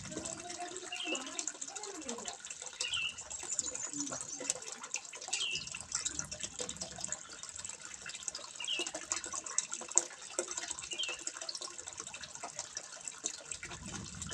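Water trickling and splashing steadily into a fish pond, with many small splashes throughout. A short high chirp recurs every two to three seconds over it.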